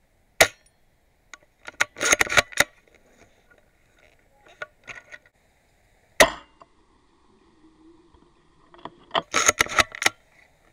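MB03 spring-powered bolt-action airsoft sniper rifle firing two sharp shots, about half a second in and about six seconds in, each followed by a quick run of clicks as the bolt is worked to re-cock it.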